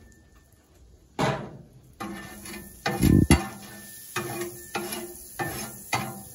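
Wide metal spatula scraping and knocking on a Blackstone griddle's flat steel top, spreading melted butter in a string of strokes about two a second, with a heavier knock about three seconds in.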